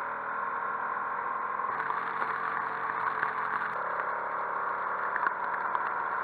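Motorcycle engine running steadily, its note shifting slightly about two seconds in and again near the four-second mark.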